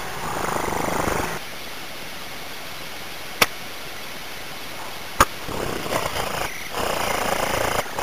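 Rough, scratchy rustling of nestlings and a parent bird moving in the nest right against a tiny camera's microphone. It goes quieter in the middle, where two sharp clicks sound, and comes back strongly near the end.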